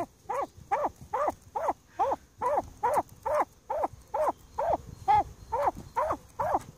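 An animal calling in a steady series of short notes that slide down in pitch, about two and a half a second.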